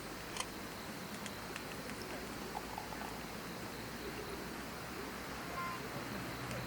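Campfire crackling: scattered small pops over a steady hiss. A low steady hum comes in near the end.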